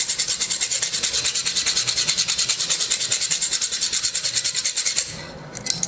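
Metal file rasping back and forth on a mixer-grinder jar's blade shaft in quick, even strokes, scraping off the hardened deposits that were jamming the blade. It stops about five seconds in.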